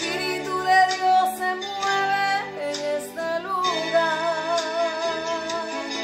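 A woman singing a slow Spanish worship chorus over a steady instrumental backing. She holds a long note with vibrato for the second half.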